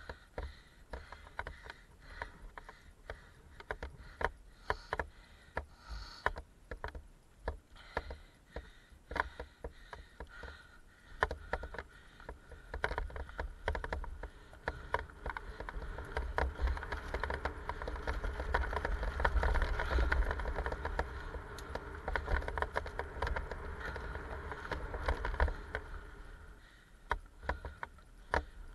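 Mountain bike riding down a dirt forest trail: tyres rolling over dirt and roots, with many sharp rattles and clicks from the bike in the first half. From about halfway the rolling noise turns steadier and louder, easing briefly near the end.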